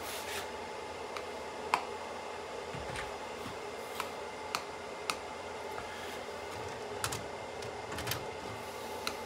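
Scattered light plastic clicks and taps from a stylus on the touchscreen of an EXFO FTB-200 OTDR and from hands working fiber connectors on a patch panel, over a steady background hum.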